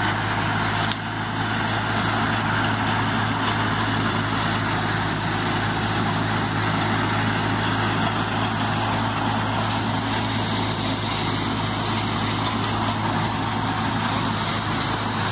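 Bean threshing machine running steadily: a constant mechanical drone with a strong low hum that does not change.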